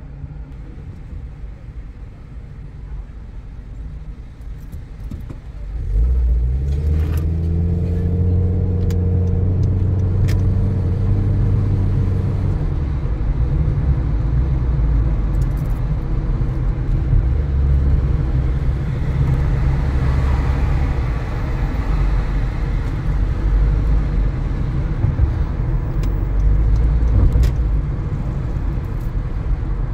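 Car engine heard from inside the car, running low at first, then rising in pitch as the car pulls away about six seconds in and holding until about twelve seconds. After that comes steady road and tyre rumble as the car drives on.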